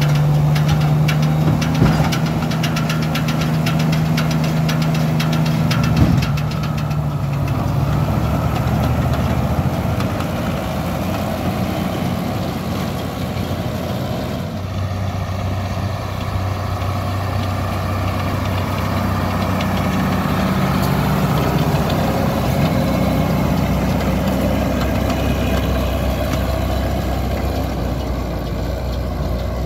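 A New Holland TM175 tractor's six-cylinder diesel engine running with a Supertino R170 round baler at work behind it. At first a steady hum, while the baler's tailgate is raised, with two sharp knocks about two and six seconds in. About halfway through it gives way to the tractor's lower, steady engine note as it pulls the baler along the windrows.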